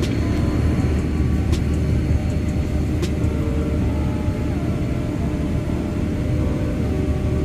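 Steady cabin noise of a Boeing 787-10 climbing out after takeoff: a loud, even rumble of the engines and rushing air heard from inside the cabin. Two faint clicks come about a second and a half apart.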